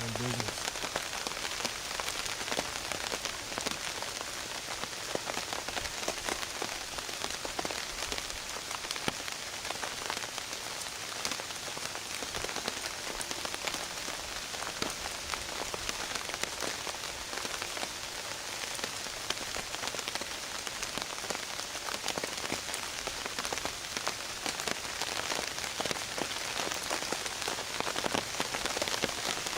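Steady rain falling on a tarp close to the microphone, a dense run of separate drop hits over a constant hiss.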